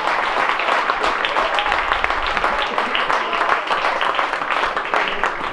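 Small crowd of spectators clapping and cheering for a goal, a dense patter of handclaps that stops abruptly at the end.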